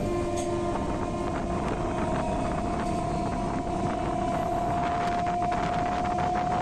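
Local passenger train running: a continuous rumble and rattle with a steady whine that rises slightly in pitch, and wind buffeting the microphone.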